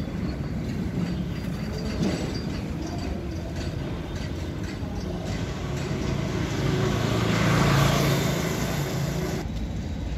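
An engine running steadily, with a low even hum, growing louder for a couple of seconds around seven to eight seconds in.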